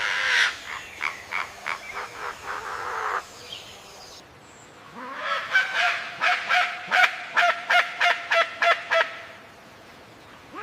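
A bird calling in two bouts of quickly repeated harsh, honking notes, each bout lasting a few seconds with a short pause between.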